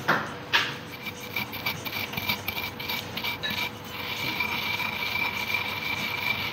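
Dry-roasted coriander, fennel and carom seeds being crushed with a pestle in a stone mortar. Two sharp knocks come at the start, then crackling and scraping of the pestle grinding the seeds against the stone, which settles into a steadier rubbing about halfway through.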